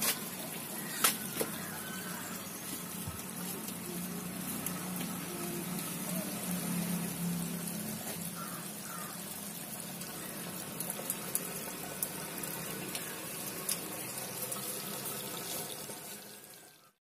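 Steady rush of water churning from a homemade PVC venturi aerator running underwater in a fish pond, driven by a pump, with a faint low hum under it. It fades out near the end.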